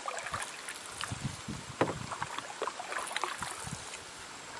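Canoe being paddled on calm water: irregular small splashes and drips from the paddle, with a few low knocks.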